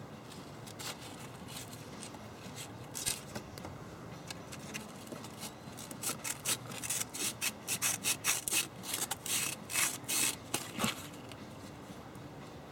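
Sandpaper rubbed by hand on a Saturn's plastic intake manifold, smoothing rough spots. A few scattered strokes come first, then about halfway through a quick run of back-and-forth strokes that stops about a second before the end.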